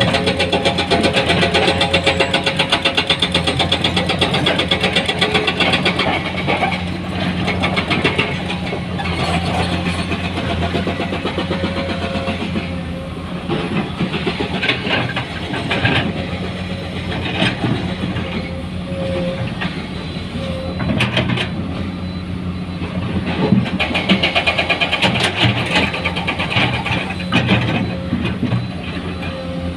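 Heavy diesel engine of a dump truck or excavator running steadily, with rattling and clattering throughout.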